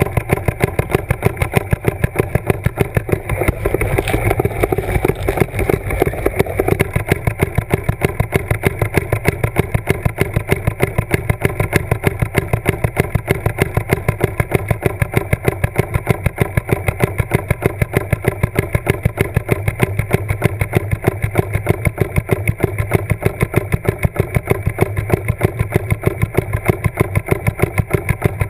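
A steady, rapid mechanical pulsing at about four to five beats a second, engine-like; it turns rougher and noisier from about three to seven seconds in.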